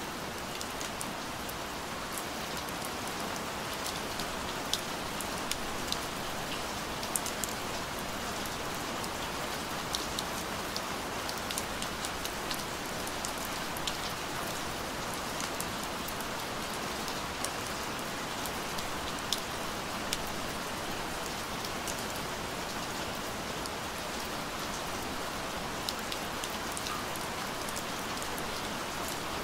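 Steady rain falling: an even hiss with scattered sharp drop ticks throughout.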